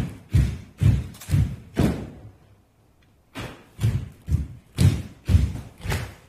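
Thuds of dancers' hands and feet striking a stage floor in a steady beat, about two a second, stopping for about a second just after the middle before starting again.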